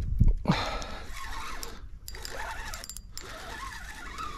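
A fishing reel being wound in against a hooked bass: its gears whir with ratchet-like clicking. A handling bump sounds right at the start.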